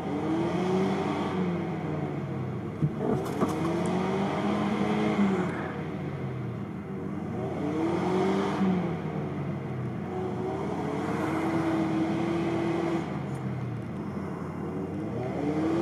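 UAZ Patriot engine revving hard and easing off again and again, its pitch rising and falling every few seconds, as it pushes through deep mud ruts with its differentials locked. A couple of sharp knocks about three seconds in.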